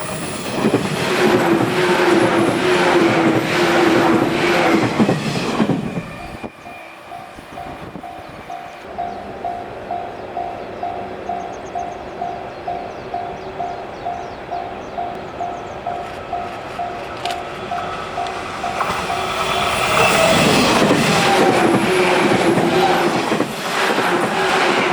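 A Chūō Line train passes close by, its wheels clattering over the rail joints. Once it has gone, the level crossing's warning bell rings on steadily, about two strokes a second. Then a second train comes through, loud, over the last few seconds.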